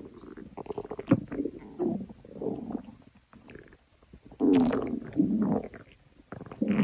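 A stomach growling in irregular runs of rumbles, with a short pause about three seconds in and a louder run just after it.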